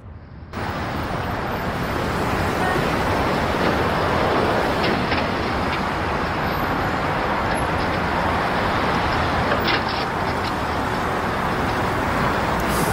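Steady road traffic noise, the even hum of vehicles passing.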